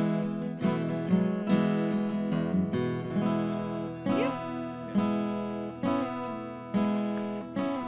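Background music: acoustic guitar strumming chords to a steady beat.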